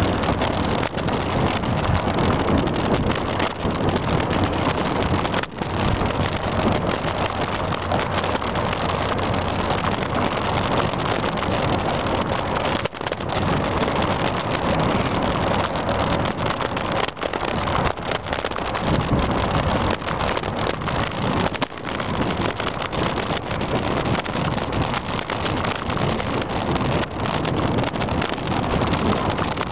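Steady rush of wind on the microphone of a camera on a moving bicycle, with a few brief dips in level.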